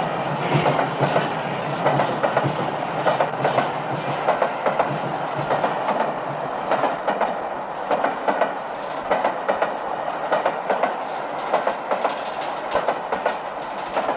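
A passing train clattering along the rails, a fast, uneven run of clicks and knocks over a steady rumble.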